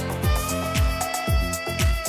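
Background music with a steady beat: a low kick drum about twice a second under held notes.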